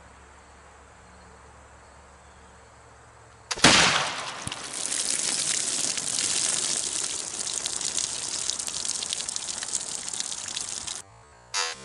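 A single shot from a .32 Pedersoli Kentucky muzzleloading rifle about three and a half seconds in, striking a row of one-gallon water jugs. Water then gushes and spatters from the holed jugs onto the plastic table for several seconds, until it cuts off near the end.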